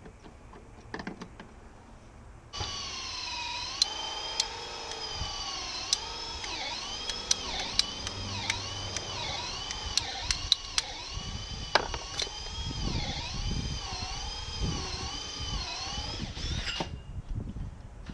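Power drill running for about fourteen seconds, starting and stopping abruptly. Its pitch dips and recovers about once a second, with sharp clicks throughout.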